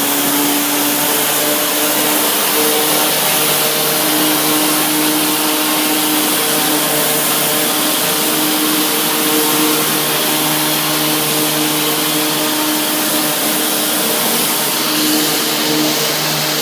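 Tile and grout cleaning machine running steadily: a loud, steady whine over a strong hiss of suction and spray.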